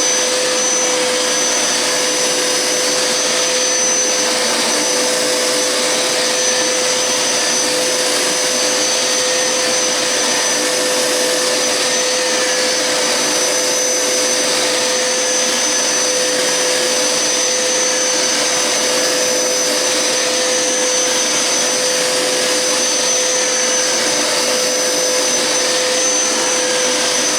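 Hoover Powerscrub Deluxe carpet cleaner running steadily in rinse mode: a constant suction rush with a steady humming tone and a fainter high whine.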